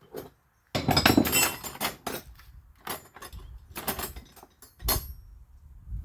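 Metal wrenches clinking and clattering as they are rummaged through and picked up: a dense jangle of clanks for about a second, then a few separate clinks.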